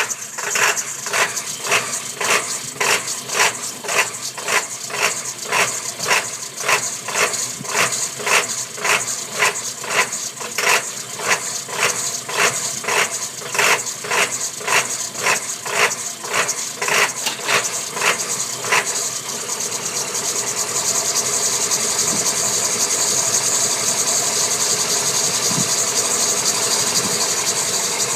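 1999 Ford F-250's 7.3L Powerstroke turbo-diesel V8 idling just after a cold start with a rhythmic lope, about two surges a second. About two-thirds of the way through, the lope dies away and the idle evens out to a steady run.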